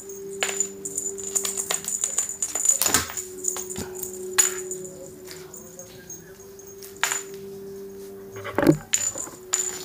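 Irregular sharp taps and rustles from a cat swatting a feather wand toy across a wooden floor beside a plastic bag, with one louder knock near the end. A steady low hum runs underneath.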